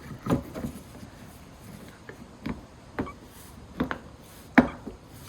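A handful of separate clicks and knocks, the loudest near the end, as the high-level brake light unit is handled and fitted back into the rear hatch.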